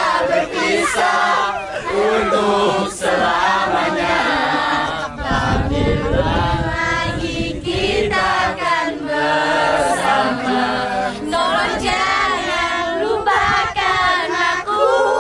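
A group of teenage boys and girls singing a song together, many voices at once.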